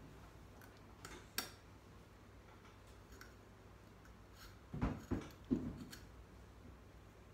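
Metal rotisserie skewers clicking as they are fitted and pushed through a pork loin on the spit. Two light clicks about a second in, then three duller knocks close together around five seconds in.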